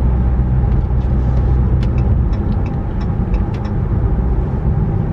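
Steady low road and engine drone heard inside the cabin of a 2019 Chrysler 300S with a 3.6-litre V6, cruising on a highway.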